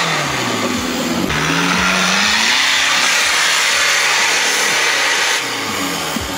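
Off-road SUV engine revving hard under load as it climbs a steep dirt bank with its tyres spinning and flinging dirt. The engine note dips and then rises about a second in, over a loud, steady rushing hiss.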